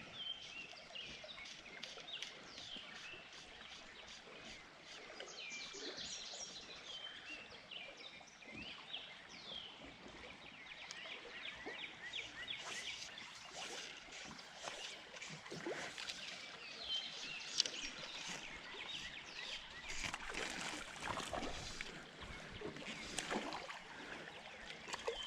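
Birds chirping and calling repeatedly over a steady outdoor hiss, with scattered clicks and knocks that come more often in the second half.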